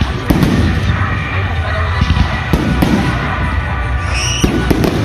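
Aerial firework shells bursting in a rapid barrage: five sharp bangs, the first about a third of a second in, two close together a little past halfway, and two more near the end. A short rising whistle comes just before the last pair.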